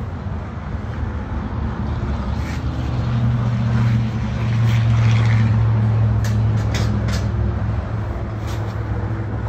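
A steady low mechanical hum that swells in the middle, with a few light clicks and knocks near the end as a steel wheel chock is set down onto a rubber floor mat.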